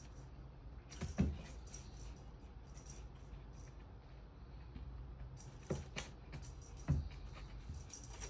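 A suction-cup cat-teaser toy on a refrigerator rattling and jingling lightly as cats bat at it, with several dull knocks against the fridge, the loudest about a second in and near seven seconds in, over a low steady hum.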